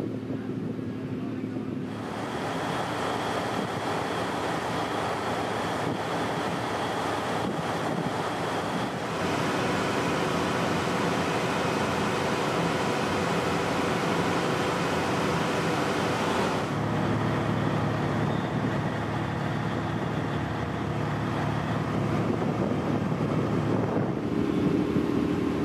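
Boat engines humming steadily over water and wind noise on the microphone, the mix changing abruptly four times.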